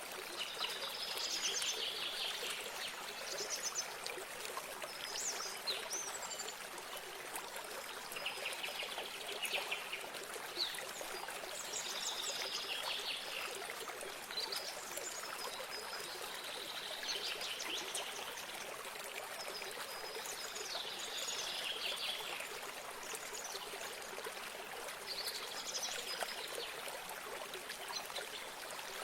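Steady running water, like a small stream or spring, with birds singing short trilled phrases every few seconds over it.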